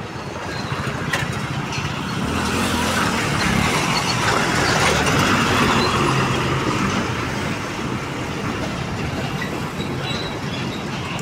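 Road traffic with a heavy truck passing close by; the engine and tyre noise swells to its loudest about halfway through and then eases off.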